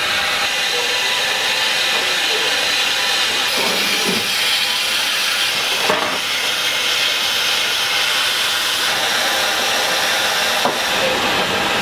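Steady hiss of steam escaping from a steel shrimp-cooking box, with a short metal knock about halfway through as the lid is handled and another near the end.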